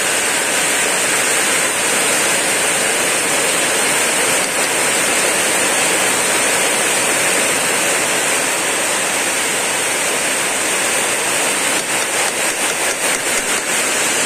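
Chicken frying in hot oil: a steady, loud sizzling hiss, with a few light clicks near the end.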